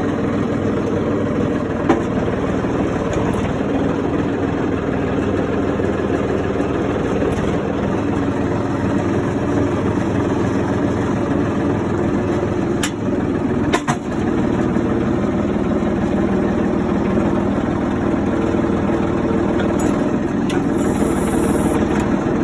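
John Deere 4300 compact tractor's three-cylinder diesel running steadily, freshly serviced. A sharp click comes about two seconds in, and a couple more around fourteen seconds in.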